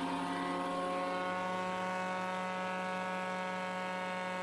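Early-1950s Asplundh mobile wood chipper, driven by a Ford 223 inline-six engine, running with its clutch engaged and the cutter drum spinning empty. It makes a steady hum and whine that holds one constant pitch.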